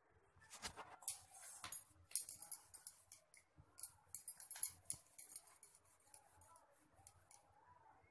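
Quiet scratchy clicks and rustles of hands handling dough and a steel plate close to the microphone, busiest in the first half and fading to a faint murmur near the end.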